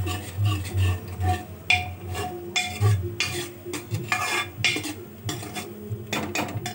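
A spoon stirring and scraping masala in an aluminium pressure cooker, with repeated clinks and scrapes against the pot and a few louder strokes. The masala paste is being fried with a little added water.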